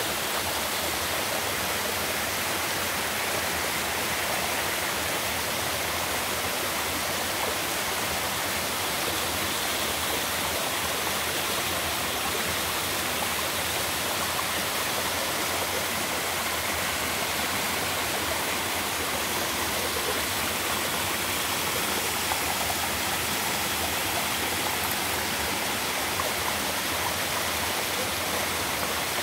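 Mountain waterfall pouring into a rocky stream: a steady, even rush of falling water.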